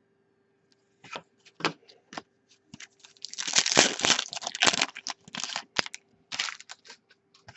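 A trading card pack wrapper crinkling and tearing open, with light clicks from cards being handled. The loudest rustle comes about three seconds in and lasts over a second.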